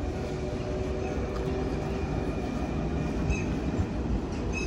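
Gothenburg articulated tram rolling in along the rails and slowing beside the platform, a steady low rumble. A couple of short high squeals come near the end as it slows.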